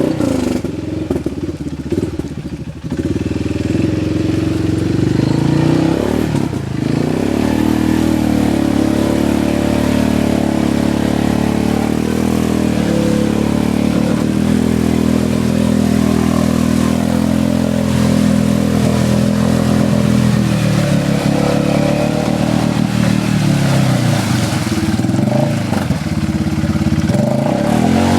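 Arctic Cat Mud Pro 700 ATV's single-cylinder engine running under throttle, revving up and down. It drops briefly a couple of seconds in, holds high through the middle, then falls and rises again near the end.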